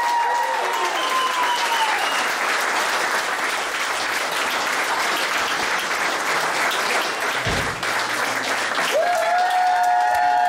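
Audience applauding, with the last notes of the dance music fading in the first second or two. A low thump sounds about three-quarters of the way through, and near the end a long held high note comes in over the clapping.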